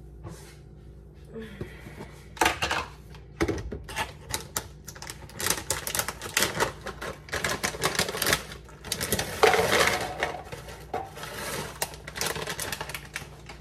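Plastic snack bag crinkling and crackling as it is opened and handled, with small teddy-bear graham crackers poured rattling into a plastic food container near the end. Rapid, irregular crackles and clicks.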